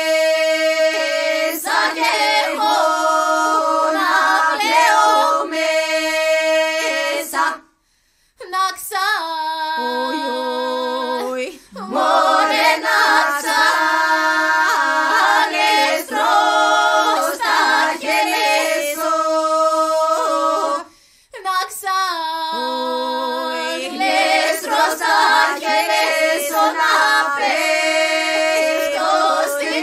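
Women's voices singing Greek folk polyphony a cappella: one voice holds a steady low note while others move above it. The singing stops briefly twice, about 8 and 21 seconds in.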